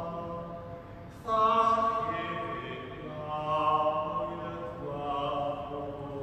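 A voice singing a slow liturgical chant, each note held for a second or more; a louder phrase begins sharply about a second in.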